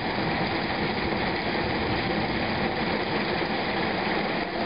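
Steady rushing noise, even in level throughout, with no distinct tones or rhythm.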